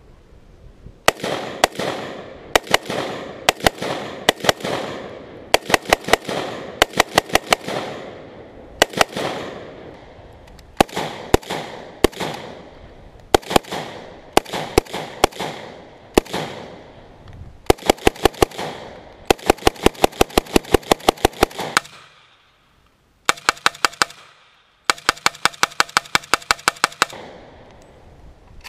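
AK-pattern rifles firing repeated quick strings of shots, a few rounds to over a dozen at a time, each string trailing off in echo.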